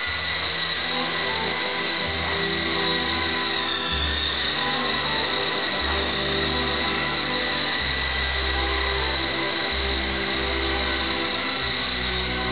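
E-flite Blade CX2 coaxial micro RC helicopter in flight, its electric motors and rotors giving a steady high-pitched whine that dips slightly in pitch about four seconds in, with background music underneath.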